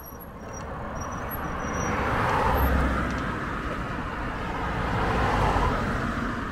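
Road traffic passing: motor vehicles drive by one after another, the noise swelling to a peak about two and a half seconds in and again near the end. High-pitched cricket chirps are heard in the first second or so.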